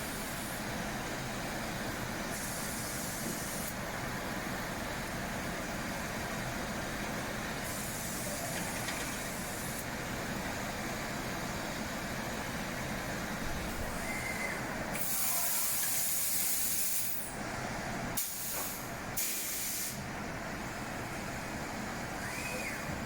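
SAOMAD Woodpecker JUST 3500 CNC woodworking machining centre running steadily, with several bursts of compressed-air hiss, the longest about two-thirds of the way through and two shorter ones right after.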